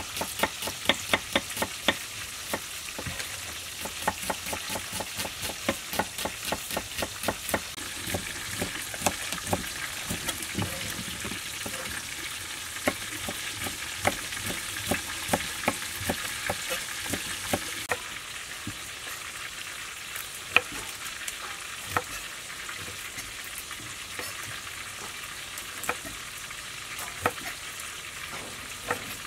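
Kitchen knife cutting through shallots and chillies onto a wooden cutting board: quick, regular taps, several a second, for the first ten seconds or so, thinning to occasional single cuts later on, over a steady hiss.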